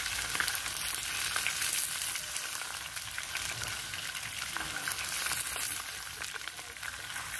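Catfish frying in hot cooking oil in a metal pan over a wood fire: a steady sizzle full of fine crackles, with a metal spatula stirring in the pan.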